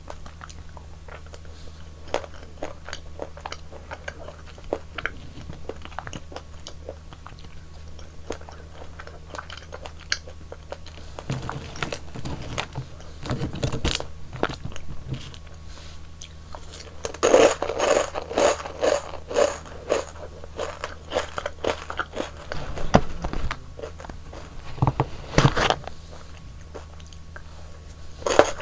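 Close-miked eating sounds: bites and crunchy chewing of frozen yogurt ice cream, in scattered clicks with a dense spell of loud crunching about 17 seconds in.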